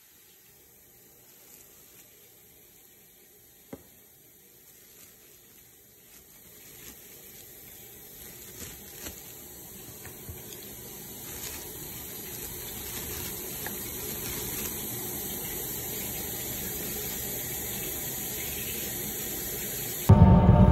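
A steady hiss, strongest in the high range, growing slowly louder, with a sharp click about four seconds in and a few faint ticks. Near the end a much louder, deeper sound cuts in abruptly.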